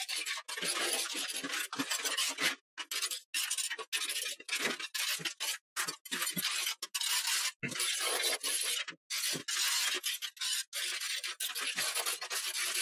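Hand tools, hammer and chisel or scraper, chipping old tile adhesive and mortar off a concrete wall: a quick, irregular run of scraping and chipping strokes with short gaps between them, as bits of dried adhesive break away.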